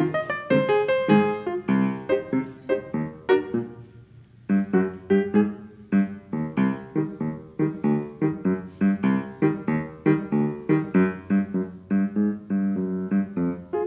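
Solo piano accompaniment for a silent comedy: a lively run of quick struck notes and chords, easing off briefly about four seconds in before picking up again.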